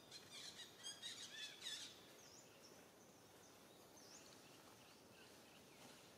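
Small birds chirping faintly: a quick run of high twittering notes in the first two seconds, then a few softer scattered chirps.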